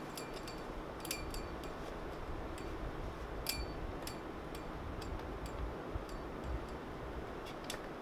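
Irregular sharp, high-pitched ticks, a few a second, over a steady background hiss.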